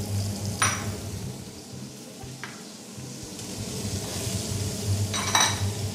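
Diced root vegetables tipped into hot lamb fat in a stainless steel pot. They clatter in briefly about half a second in and again near the end, with sizzling frying in between.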